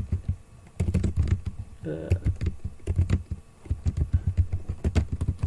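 Typing on a computer keyboard: a quick, uneven run of key clicks, as code is entered.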